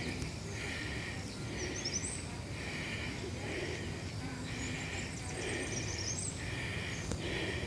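Outdoor morning ambience: birds chirping, with a short call repeating about once every 0.8 s and a few higher chirps.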